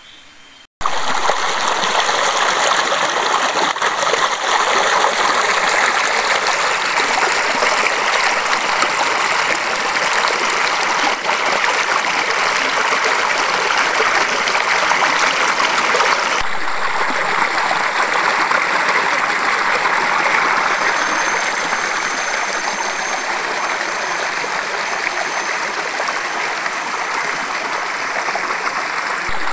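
Waterfall pouring down a rock face and splashing into its pool: a steady, loud rush of falling water that cuts in abruptly about a second in.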